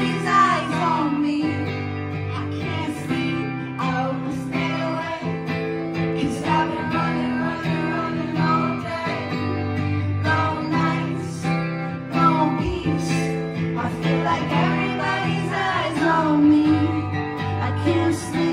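Live band music: an acoustic guitar strummed in steady chords, with a woman's singing voice coming in at times over it.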